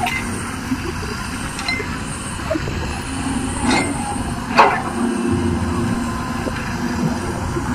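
Caterpillar 320D hydraulic excavator digging: its diesel engine runs steadily under load, with two sharp clanks about halfway through.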